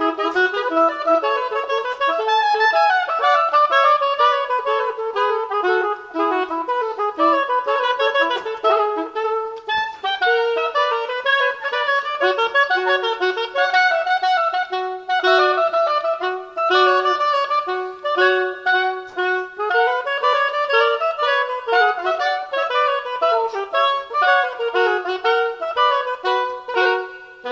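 Two wooden baroque oboes playing a brisk gigue in two interweaving parts, with fast running notes.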